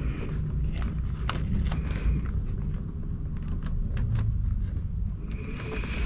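Scattered sharp clicks and handling noise from close-up car wiring work: a plastic Scotch-lock tap connector being fitted onto the positive wire, over a steady low rumble.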